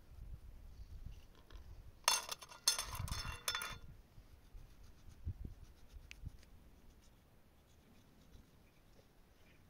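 Small kitchen knife cutting tomatoes held in the hand, with light scratchy cutting sounds. About two seconds in comes a louder burst of scratchy scraping that lasts under two seconds.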